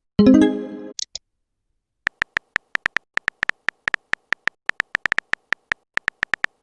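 Short electronic beeps ticking in quick, uneven succession, like dialogue blips, after a brief synth chord and a small high chirp at the start.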